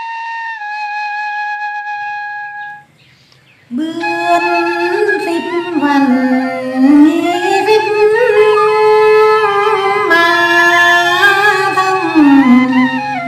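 A flute holds a long note that stops about three seconds in. After a short pause, a woman starts singing a Tày phong sư folk song in long, sliding held notes.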